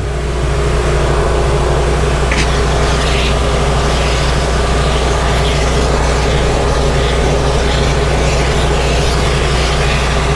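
Shop vac powering a carpet extractor, running steadily with a low motor hum and a rushing suction noise that swells slightly just after the start, as it pulls floodwater from car carpet.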